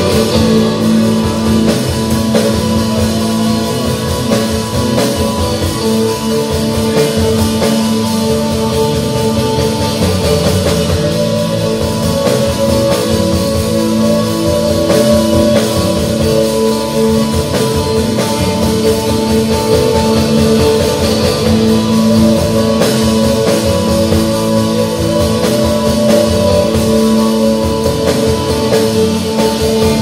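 Live instrumental slowcore rock band playing: Fender Stratocaster electric guitar, bass guitar and drum kit, with long held guitar notes ringing over the steady band.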